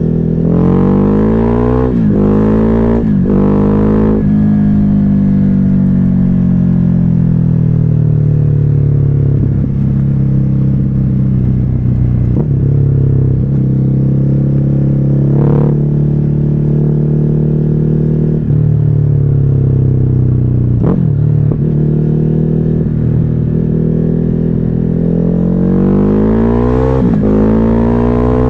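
Ducati Hypermotard 950's 937 cc Testastretta L-twin through a Termignoni exhaust with the dB killer removed, revving up through several quick upshifts in the first few seconds. It then holds a fairly steady speed with revs slowly rising and falling and a few brief shift breaks, and pulls up through the revs again near the end.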